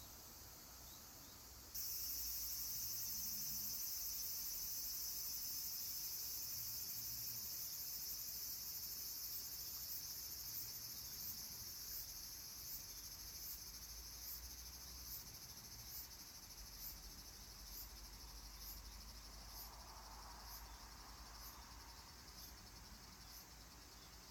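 An insect's shrill, high-pitched call switches on abruptly about two seconds in and holds steady. From about halfway it breaks into separate pulses, roughly one and a half a second, slowly fading.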